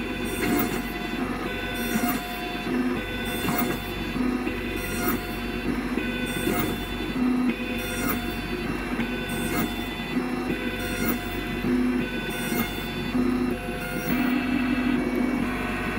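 Sirona CEREC MC XL dental milling unit grinding a ceramic block with its two water-cooled diamond burs. A steady motor whine runs under a hissing grind that swells and fades about every three quarters of a second as the burs sweep back and forth across the block.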